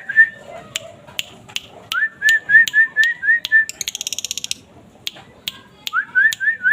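Caged bird singing in bursts: quick phrases of five or six short rising whistled notes, with sharp clicks between them and a fast buzzy trill about four seconds in.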